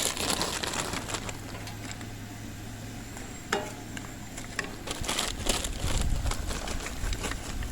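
A frozen pepper and onion blend sizzling in a hot cast iron skillet on a gasoline camp stove, with a steady frying hiss and a few sharp clicks and knocks from the pan and utensils, starting about three and a half seconds in.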